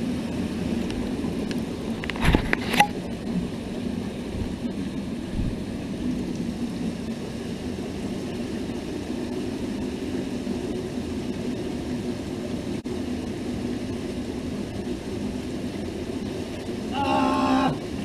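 Shallow cave stream running steadily over the rock floor, with a few sharp knocks of something hitting rock a little over two seconds in.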